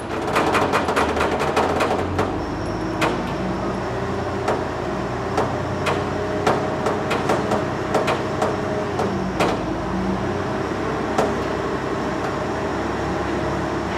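Sharp metal knocks and clinks, a quick run in the first two seconds, then single knocks every half second to a second, over a steady machine hum.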